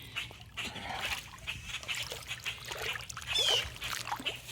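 Short high-pitched animal cries, one clear cry about three and a half seconds in, over small clicks and rustles of handling.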